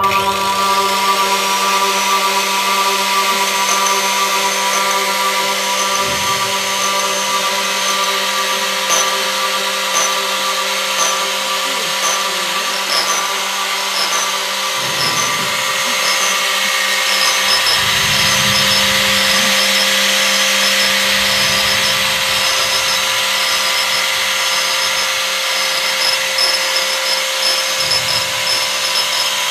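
Experimental noise improvisation on amplified violin and a rack of mounted metal wheels: a dense, steady wash of noise over several held drone tones. A few low thuds break in, and faint high ticks repeat through the second half.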